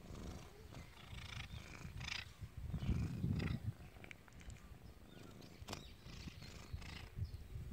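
Domestic cat growling low in uneven spells, loudest about three seconds in.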